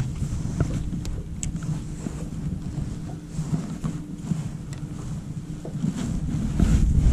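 Wind buffeting the microphone in an open boat over a steady low hum of a boat motor, with a few small ticks and knocks scattered through.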